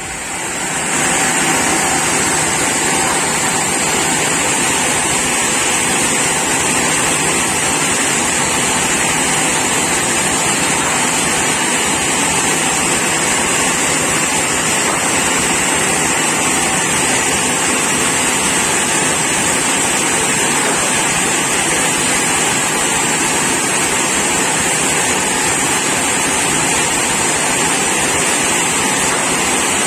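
Sawmill machinery running with a steady, even noise that does not change throughout, with a strong high-pitched hiss over a lower mechanical drone.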